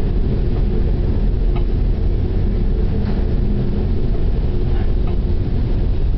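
Steady low rumble of a ship under way in heavy weather, engine hum mixed with wind, with a few faint knocks.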